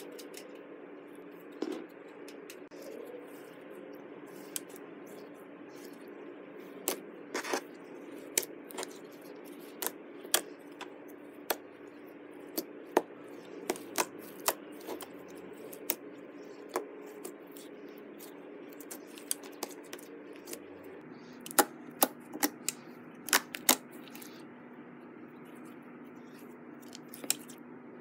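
Clear slime mixed with holographic glitter being kneaded and squeezed by hand, giving irregular sharp clicks and pops, with a cluster of louder clicks about three quarters of the way through. A low steady hum runs underneath.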